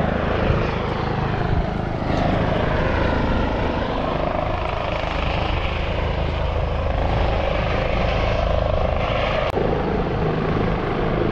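Mountain rescue helicopter flying close by: a loud, steady rotor and engine sound whose pitch slowly slides up and down as it moves.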